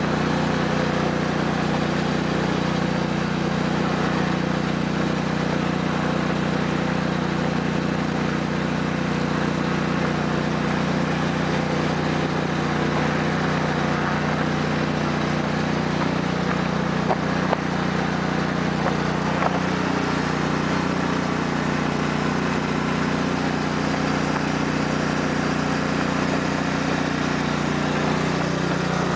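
A 1993 Sears Craftsman lawn tractor's 14 HP Kohler OHV single-cylinder engine running at a steady speed as the tractor drives over ice, with a couple of brief clicks about two-thirds of the way through.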